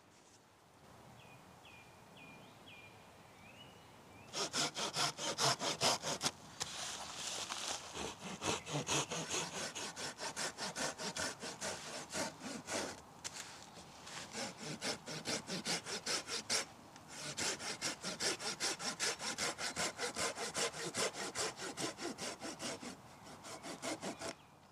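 Hand saw cutting through a piece of dead wood in quick back-and-forth strokes, about three a second, starting about four seconds in, with a few brief pauses. A bird chirps faintly a few times before the sawing begins.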